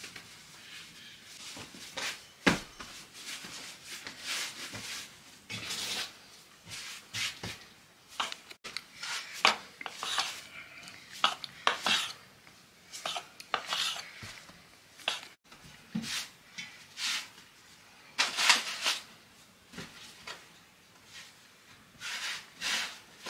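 Kitchen work: dishes, pots and utensils clinking and scraping in irregular short strokes, with a sharp knock about two and a half seconds in.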